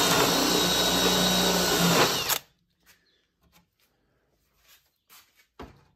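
Electric hand drill running under load, boring a hole through plywood into a softwood backing block, then cutting off abruptly a little over two seconds in. A few faint light knocks follow.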